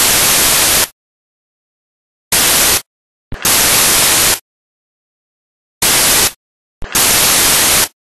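Loud bursts of white-noise static, switched on and off abruptly in a repeating short-then-long pattern: a half-second burst, a short gap, then a burst of about a second, recurring about every three and a half seconds with dead silence between.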